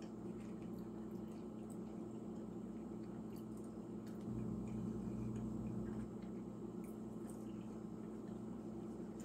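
Steady low hum, louder for a couple of seconds around the middle, with scattered faint clicks and rustles of a paper towel and utensil as cheese-filled plantain fritters are picked at and tasted.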